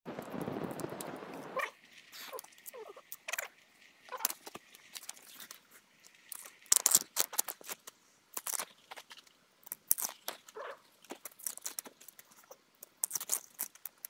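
Husk sheaths being torn and peeled off fresh bamboo shoots by hand: irregular crisp snaps, cracks and tearing crackles, the sharpest about seven seconds in. It opens with a second and a half of rustling noise.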